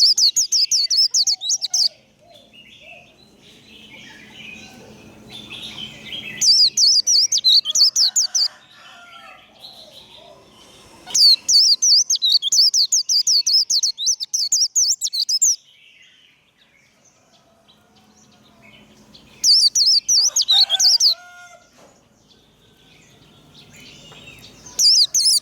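White-eye (vành khuyên) singing its fast, high twittering 'líu' song in bursts of a few seconds, four times with a fifth starting near the end, with quieter chirps in the pauses between.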